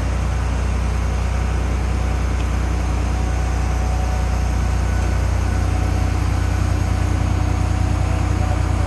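Heavy engine of the hoisting truck running steadily with a deep, even hum while the refrigerator is lifted.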